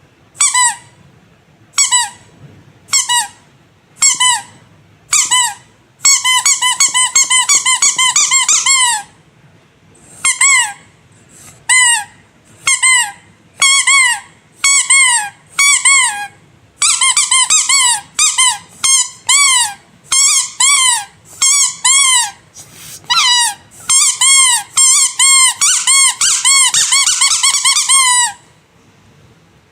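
Rubber squeaky animal toy squeezed over and over, each squeak a short pitched call that rises and falls. Single squeaks about a second apart at first, then quick runs of squeaks in rapid succession.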